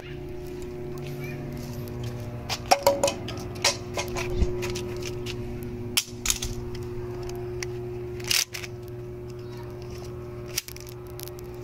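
Steady low electrical hum with a higher overtone from a pad-mounted high-voltage transformer, broken by scattered clicks and scuffs of footsteps and handling, with a cluster of sharp clicks about three seconds in and a single sharp click near the end.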